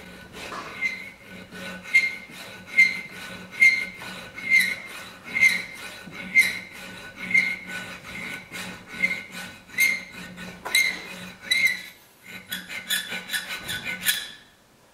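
Round needle file rasping back and forth in the hole of a thin steel bracket held in a vise, enlarging the hole into a slot. The strokes come about one a second, each with a short high ring from the metal. After a brief pause there is a quicker run of shorter strokes, which stops just before the end.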